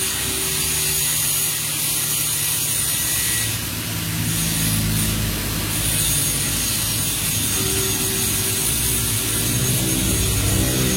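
Wheel straightening machine running steadily, its motor humming with a mechanical rattle as it spins the repaired alloy wheel.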